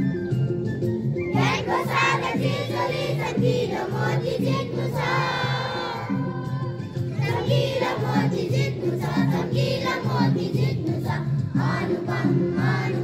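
A crowd of schoolchildren singing their school song together in chorus, over a steady instrumental backing.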